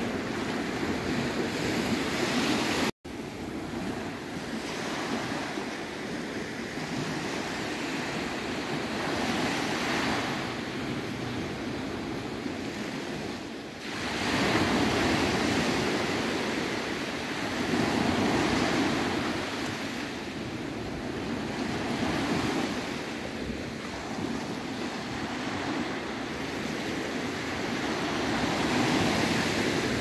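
Small Mediterranean waves breaking and washing up a sandy beach, the surf swelling and easing every few seconds. The sound drops out briefly about three seconds in.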